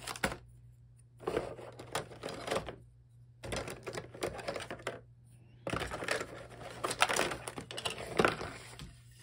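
Hard plastic board-game parts clicking and clattering as a black plastic box insert and deck holder are handled, in four bursts of rapid small knocks with short pauses between.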